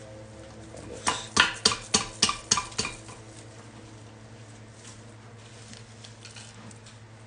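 About eight sharp clacks in quick succession, roughly four a second, about a second in: a plastic plant pot being knocked and handled to loosen a strawberry plant out of it.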